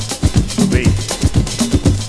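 Music with a fast, steady drum beat and a repeating bass line.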